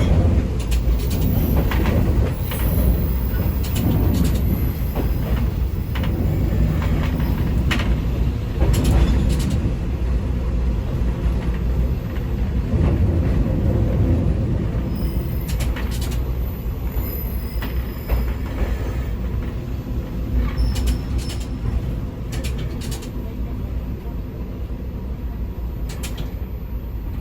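Ex-JNR KiHa 20-series diesel railcar KiHa 205 running on jointed track: steady low engine and running rumble with sharp wheel clicks over rail joints and brief thin wheel squeals. The sound gradually quietens as the railcar eases off.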